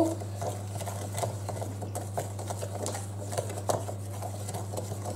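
Wooden spoon stirring a thick melted chocolate, sugar and butter mixture in a glass bowl, with irregular small scrapes and knocks against the bowl's sides, over a steady low hum.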